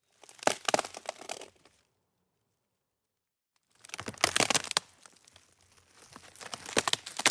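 Crinkling, crackling handling noise in two bursts: a short one near the start and a longer one from about four seconds in.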